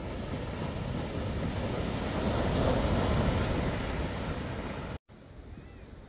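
Atlantic surf: waves breaking on the beach, with wind buffeting the phone's microphone. The surf swells to its loudest about halfway through, then cuts off abruptly about five seconds in and gives way to quieter surf.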